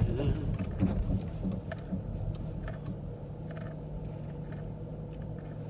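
Steady engine and road hum inside a moving car, with a few faint ticks.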